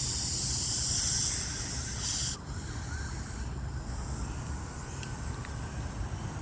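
Air hissing out of a tire's puncture hole, cutting off abruptly about two and a half seconds in as the hole is stopped up by the rubber screw plug being pushed in.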